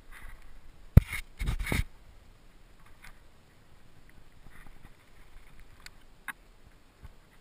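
Climbing contact noise picked up by a helmet camera: a sharp knock about a second in and a brief rough rubbing burst just after, then faint scuffs and a small click, as hands, gear and helmet brush and knock the sandstone.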